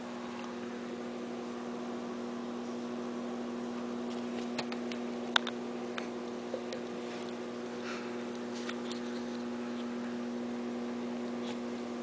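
A steady low electrical-sounding hum, with a few scattered light clicks and taps, the sharpest about five seconds in.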